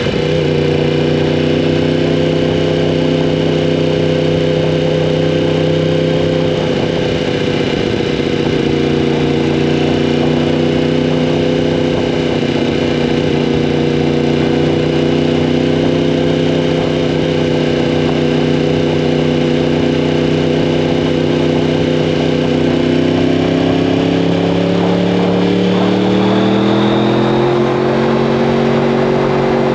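Crossplane inline-four (CP4) engine of a 2015 Yamaha R1M, through an Akrapovic exhaust, running at steady revs. The pitch dips a little a few seconds in and climbs over the last few seconds as the revs rise.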